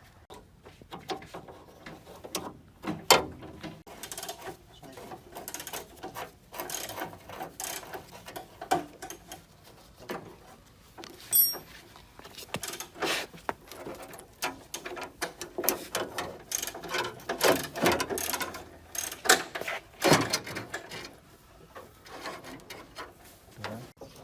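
Irregular clicks, taps and scrapes of hand work on car body parts, with a brief high squeak about eleven seconds in.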